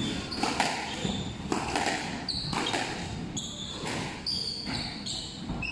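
Squash rally: a squash ball struck by racquets and smacking off the walls and wooden floor, a string of sharp hits about every half second to a second, with short high squeaks of sneakers on the court floor between them.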